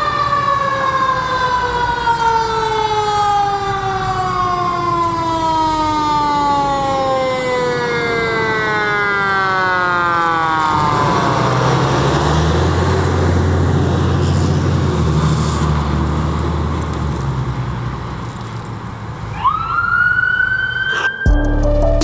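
Fire engine siren slowly winding down in pitch over about ten seconds. The truck's deep, steady engine drone follows as it passes close by. Near the end the siren starts to rise again, and music cuts in at the very end.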